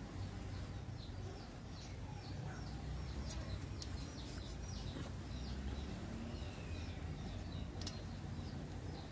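Small bird chirping repeatedly, short falling chirps about twice a second, over a faint low background rumble.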